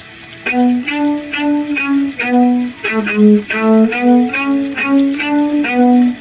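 Violin music: a run of short, separate bowed notes in the instrument's low register, about two or three a second, starting about half a second in.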